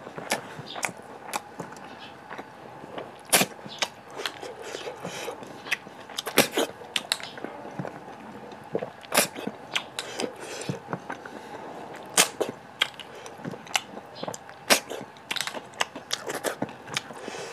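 Close-miked mouth sounds of a person eating rice and snail curry: chewing with wet lip smacks and sharp clicks at irregular intervals, a few of them louder than the rest.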